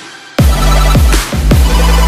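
Background electronic music with a heavy bass beat; after a brief dip near the start, the full beat comes back in under half a second in.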